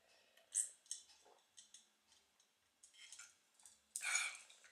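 Faint swallowing and small mouth clicks of a man drinking from a glass, then a louder breath out about four seconds in as he lowers it.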